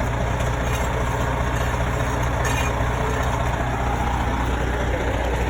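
Fire engine's engine idling steadily with a low, even hum.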